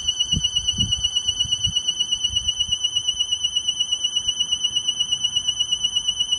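Husqvarna Automower robotic lawnmower's theft alarm sounding: a loud, continuous high-pitched electronic tone that warbles rapidly and evenly without stopping. A few low thumps come in the first couple of seconds.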